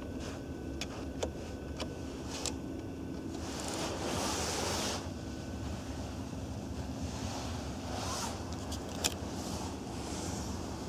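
A few sharp clicks in the first couple of seconds from the rear centre-console air-vent adjuster wheel being moved by a finger. They are followed by bursts of rustling as the camera is moved around the car's cabin, over a steady low hum.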